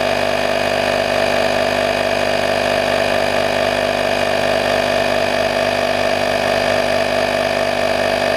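AstroAI portable 12 V air compressor running steadily with an even, high-pitched motor hum, pumping a car tire that is nearly up to pressure at about 41.5 PSI.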